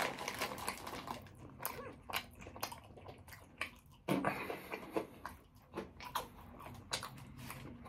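A person chewing and biting food close to the microphone, with irregular mouth clicks: eating a meatball marinara sub.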